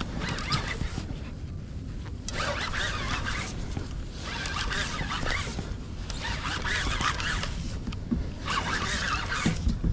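Conventional fishing reel being cranked in four bursts of about a second each, with short pauses between, as a hooked sturgeon is reeled in. A steady low rumble runs underneath.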